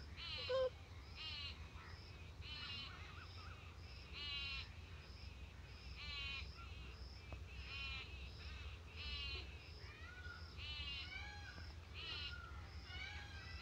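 Faint, harsh bird calls repeated every second or two, with short high chirps between them and a low steady hum underneath. A brief louder blip comes about half a second in.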